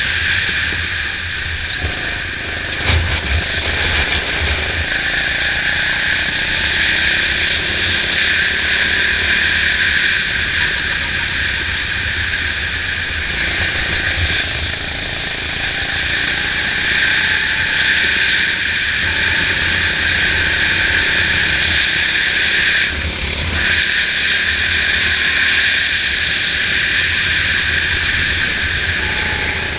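Racing kart engine running hard on a lap, heard from onboard with a high, steady engine note over a low rumble. The note dips briefly a few times.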